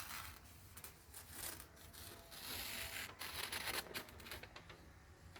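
Freshly sharpened knife edge drawn through paper in slicing strokes, a series of soft rasping hisses, the longest about two and a half seconds in. It is a cutting test of the new edge, feeling for spots where it catches.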